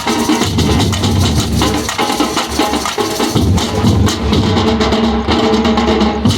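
Batucada percussion ensemble playing a dense, driving samba rhythm on drums, with sharp clacking accents over the low drum beats.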